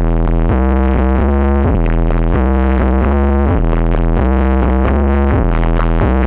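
Electronic dance music blasting from a carnival sound system, with a heavy bass line under pitched synthesizer notes that change in a steady rhythm.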